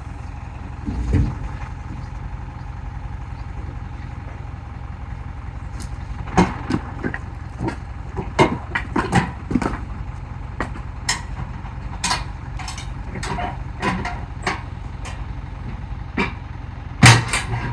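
A vehicle engine idling steadily, with a run of sharp knocks and clatters of firewood logs from about six seconds in, the loudest near the end.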